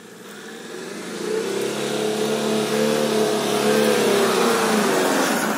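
Toyota Fortuner's 3.0-litre D-4D four-cylinder turbodiesel pulling under throttle through soft sand, a steady engine note that grows louder over the first two seconds as the vehicle approaches.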